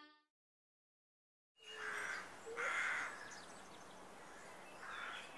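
Silence for about the first second and a half, then crows cawing outdoors: two harsh caws, then another near the end, over faint chirping of small birds.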